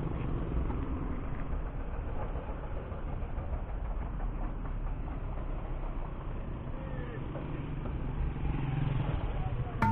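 Road traffic: vehicle engines running and passing in a steady low rumble.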